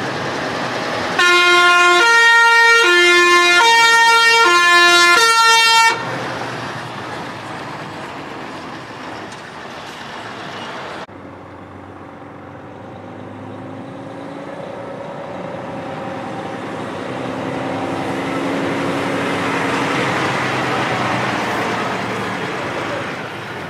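A truck's multi-tone air horn blares loudly for about five seconds, switching back and forth between two chords like a siren, then cuts off abruptly. After that, heavy truck diesel engines run, one growing louder as it approaches.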